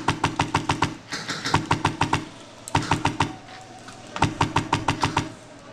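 Airsoft gun firing on full auto in four bursts of about a second each, roughly eight shots a second, with the gun's mechanism humming under each burst.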